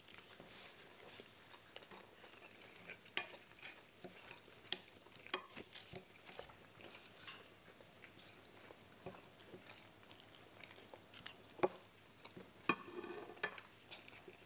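Faint, scattered taps and scrapes of wooden spoons on a plate as food is scooped up, with chewing in between.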